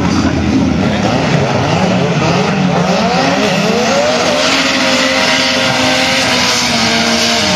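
Drag race car's engine running hard on a pass, its pitch climbing for about two seconds midway and then holding high and steady, with a rushing noise joining about halfway.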